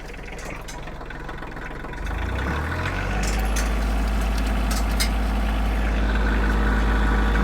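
Kioti tractor's diesel engine running, then about two seconds in the PTO-driven Titan wood chipper is brought up to speed. The sound rises over about a second and settles into a louder, steady heavy drone.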